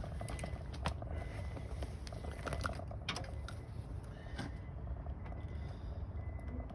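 A low, steady rumble with a few light clicks and taps, about one every second or two, as of tools or wiring being handled.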